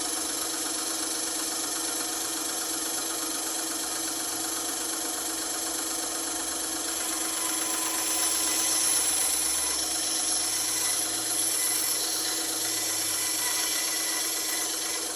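Bandsaw running with a steady motor hum, its blade cutting through wood; the cutting hiss grows louder for a few seconds past the middle, then eases off.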